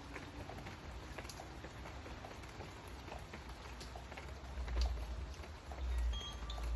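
Rain pattering, with scattered drops ticking close by. A deep low rumble swells in the second half, and a few high chime tones ring out near the end.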